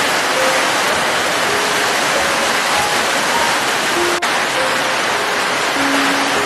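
Steady heavy rain, a dense even hiss, with a soft, slow melody of single held notes faintly under it. A brief click and momentary dip in the sound about four seconds in.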